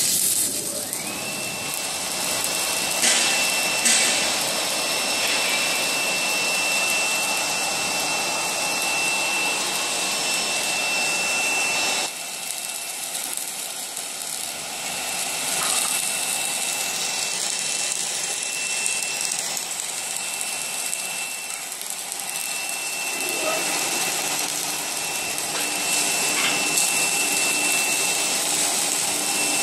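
Gantry automatic submerged-arc welding machine welding a steel beam: a steady hiss and hum of the welding and machinery with a constant high whine over it. Two sharp knocks come about three and four seconds in.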